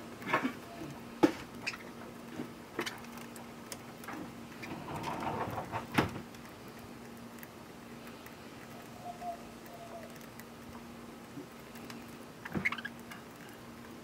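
Budgies pecking and husking seed from a person's palm: small irregular crackles and taps, with a few sharp clicks and short rustles, over a faint steady hum.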